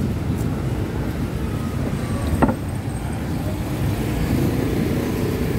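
Steady low rumble of street traffic, with one short sharp click about two and a half seconds in.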